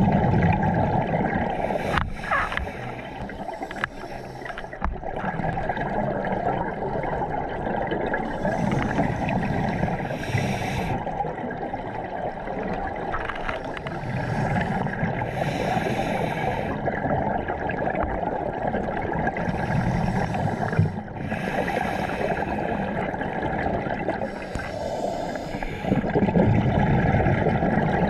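Scuba diver breathing through a regulator, heard underwater: a steady murky rush with a bubbling surge of exhaled air about every six seconds.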